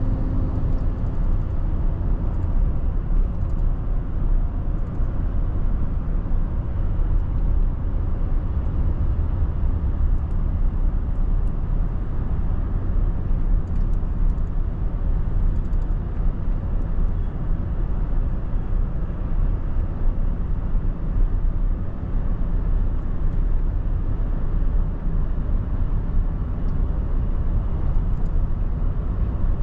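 Steady low road and engine rumble of a car being driven at speed, heard from inside the cabin.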